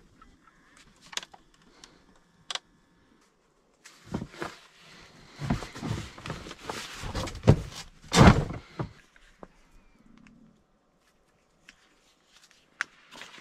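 Gear being handled in a small space: a few sharp clicks, then a run of knocks, scrapes and rustles with the loudest bump about eight seconds in, then a couple of faint clicks near the end.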